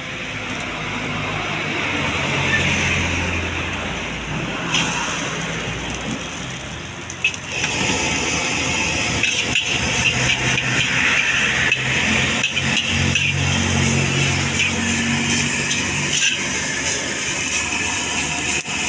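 Fried rice being stir-fried in a carbon-steel wok over a gas burner: a steady rush of burner and frying. About seven seconds in it gets suddenly louder as chopped greens go into the hot wok and sizzle. From then on the metal spatula scrapes and clanks against the wok again and again.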